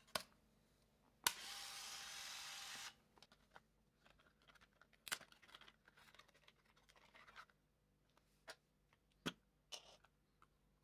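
Leica AF-C1 compact film camera: a click, then its small film-transport motor whirs steadily for about a second and a half. Scattered clicks and rustles of handling follow.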